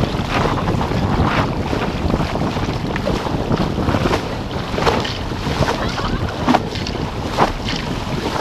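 Wind buffeting the microphone over the rush of water along a Topper Topaz dinghy's hull at about 11 km/h, with spray splashing over the bow every second or so.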